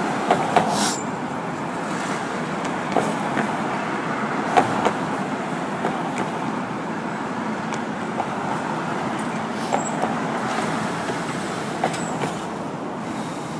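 Steady city street traffic noise, with scattered short knocks and clicks, the sharpest near the start and about four and a half seconds in.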